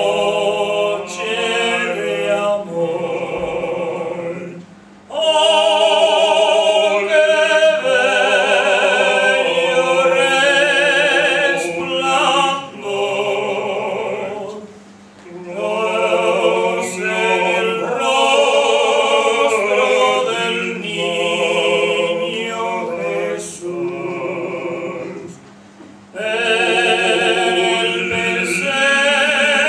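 Two male voices, a tenor among them, singing a Christmas carol duet through microphones in an operatic style with wide vibrato. The long phrases are broken by short breaks for breath.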